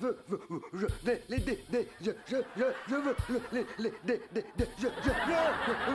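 A man's voice making a laugh-like hooting sound over and over, about three short rising-and-falling hoots a second, with a few dull thumps among them.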